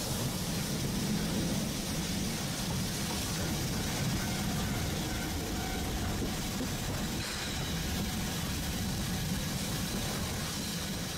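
A train running along the track: a steady low rumble with a hiss over it.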